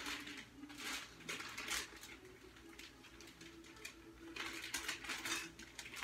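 Handling and rummaging noises: a few short rustles in the first two seconds, then a thin plastic bag rustling and crinkling for over a second near the end.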